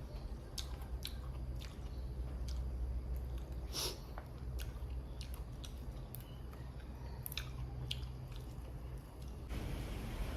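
A person chewing and eating, with scattered sharp clicks and mouth smacks. An even hiss grows louder near the end.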